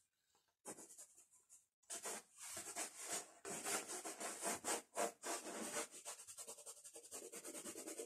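A white crayon scratching across a painted canvas: a few short strokes, then quick back-and-forth scraping from about two seconds in.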